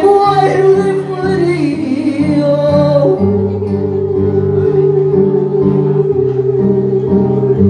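A woman singing karaoke into a microphone over a recorded backing track. About three seconds in she settles on one long held note and keeps it nearly to the end.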